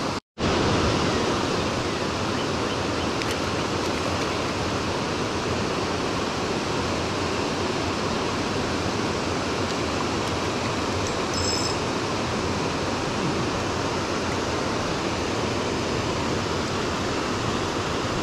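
Steady, even rushing of a spring-fed trout stream's flowing water. The sound cuts out completely for a split second just after the start.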